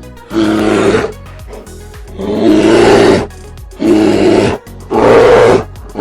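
An animal roaring loudly in about five short, rough calls of under a second each, over background music.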